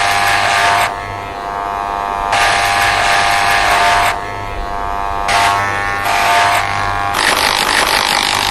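Corded electric hair clippers running with a steady buzz, turning harsher in three long stretches as they cut through thick fur.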